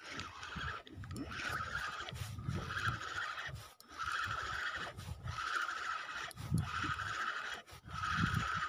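Spinning reel being cranked to reel in a hooked fish, its gears whirring in short pulses about once a second, one pulse for each turn of the handle, over a low rumbling.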